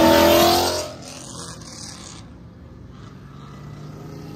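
A loud engine accelerating hard, its pitch slowly rising, cuts off abruptly about a second in. After that, a quieter steady rumble of road traffic and engines.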